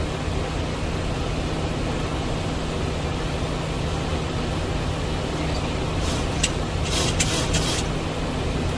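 Steady cockpit noise of a Boeing 737 MAX 8 in the air shortly after takeoff: an even rush of airflow and engine noise with a constant low hum. A few brief clicks or rustles come about six to eight seconds in.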